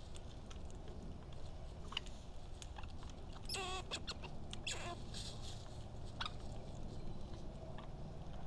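Birds calling at a backyard seed feeder: a short, rolling, harsh call about three and a half seconds in, a briefer one about a second later, and scattered faint chirps and clicks over a steady low outdoor rumble.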